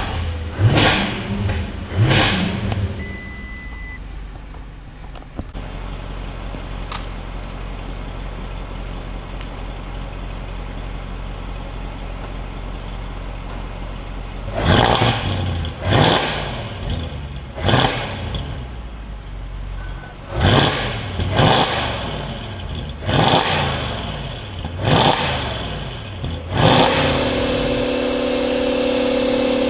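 2014 Audi RS7's twin-turbo V8 being blipped on the throttle in a stationary rev-up: three quick revs, about nine seconds of steady idle, then a run of about eight sharp revs, each rising and dropping back fast. Near the end a steady hum takes over.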